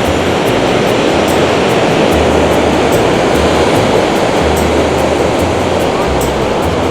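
Steady wash of ocean surf with wind buffeting the microphone in low, irregular rumbles.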